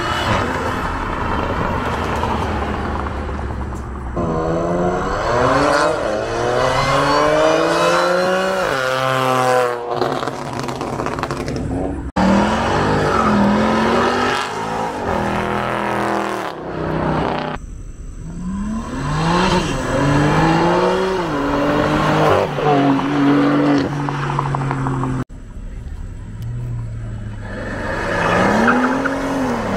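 Supercar engines revving hard and accelerating in a series of pulls. The pitch climbs steeply and drops back at each gear change. The sound breaks off abruptly twice as one car's pull gives way to another's.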